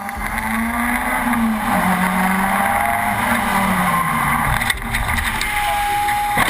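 Road traffic with a vehicle engine droning, its pitch rising and falling, over steady road noise; a single held higher tone sounds for about a second near the end.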